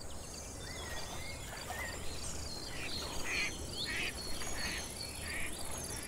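Outdoor ambience of birds chirping, with short chirps and whistled glides that come in quick clusters during the second half. A faint, evenly repeating high tick and a steady low rush run beneath them.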